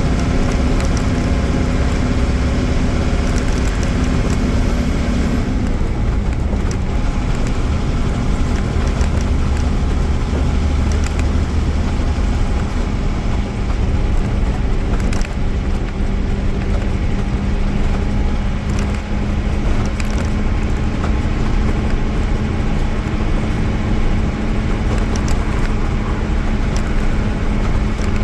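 Mercedes-Benz OM-366A six-cylinder diesel engine of a Marcopolo Viaggio G4 800 coach running as the bus drives, its steady tone dropping in pitch about five seconds in and then holding steady. Occasional short clicks sound over it.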